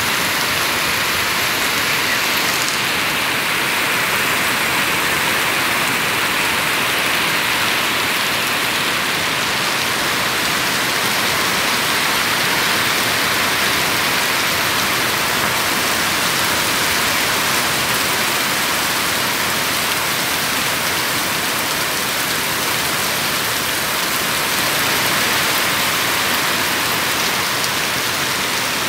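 Heavy rain pouring down steadily on trees and plants, a dense, even hiss that never lets up.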